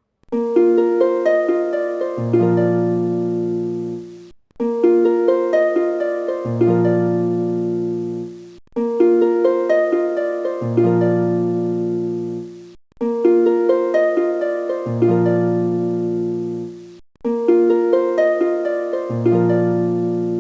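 Background music: a short plucked harp-like phrase over a low held bass note, looping about every four seconds with a brief break between repeats.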